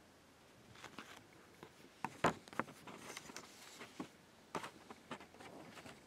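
Faint handling sounds of a paper DVD episode-list insert: scattered rustles and small clicks, the sharpest click a little over two seconds in.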